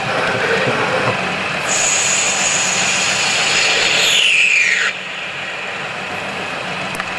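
Omniturn gang-tool CNC lathe running dry on brass bar stock, with steady machine noise and hum. About two seconds in a high whine sets in, slides down in pitch and cuts off abruptly about five seconds in, after which the machine runs on more quietly.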